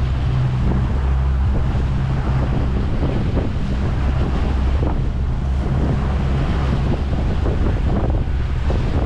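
Heavy wind buffeting the microphone and the rush of sea water around a fishing boat, over the steady low hum of the boat's engine running.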